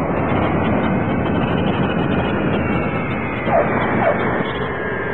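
Light aircraft in flight: a steady roar of engine and rushing air, dull in the narrow sound of an old 16 mm film soundtrack.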